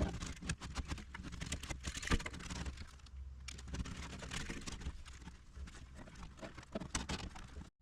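Irregular clicking, tapping and rustling of wires being fished through and tucked behind plastic interior trim panels in a truck cab.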